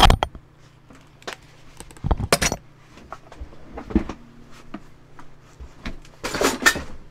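Scattered knocks and metal clinks of things being handled and set down on a metalworking bench, with a longer rustling scrape near the end, over a steady low hum.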